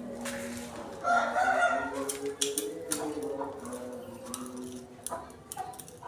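A rooster crows once, about a second in, for about a second, over steady humming tones, followed by a few sharp clicks.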